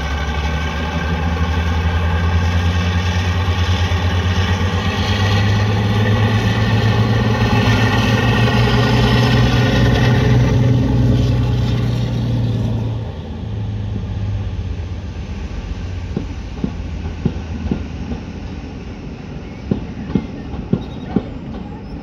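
Diesel locomotive passing, its engine running loud with a steady note that steps up in pitch about five seconds in. About thirteen seconds in the engine note drops away, and the coaches following it click over the rail joints.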